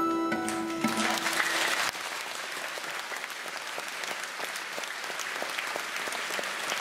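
The last held chord of an acoustic ensemble (guitar, violin, cello and double bass) dies away while a concert audience starts applauding. The music stops about two seconds in, and steady applause goes on after it.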